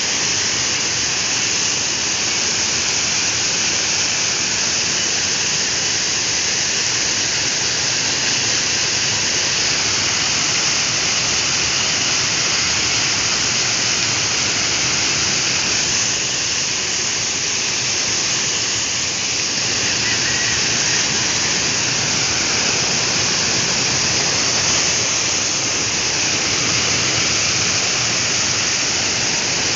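Heavy flow of water spilling over the rim of a concrete reservoir and falling in a sheet onto rocks below: a steady, loud rush of splashing water.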